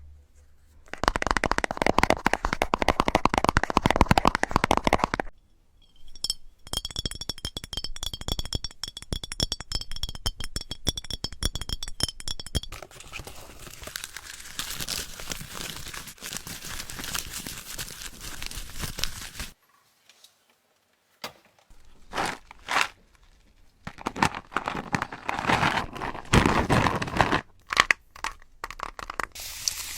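Close-miked crunching and crinkling in several long bursts, with a faint ringing tone over the second one, a short silence partway through, then a few shorter crackling strokes near the end.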